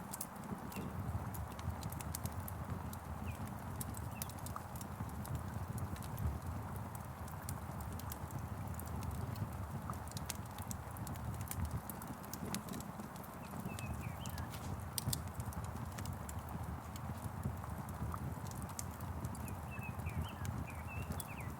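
Wood fire crackling with frequent sharp pops and a low rumble, over a steady hiss of rain. Small birds chirp faintly now and then, most near the end.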